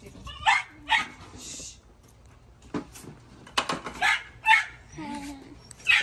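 A dog barking in short, sharp, high-pitched barks, about eight of them at uneven intervals. It is the piercing bark of a dog held back from jumping on the people, barking at them for attention.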